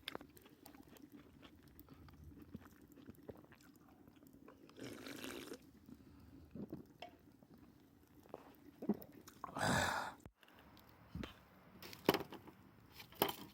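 A person eating hot food: quiet chewing and biting with small clicks, and a short, louder noisy sound about ten seconds in.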